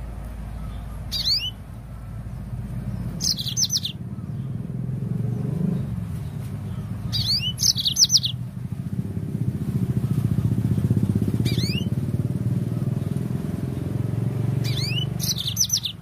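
Yellow-fronted canary (Mozambique canary) giving about five short bursts of quick, high, sweeping chirps a few seconds apart. Under them runs a steady low engine-like drone that swells in the middle.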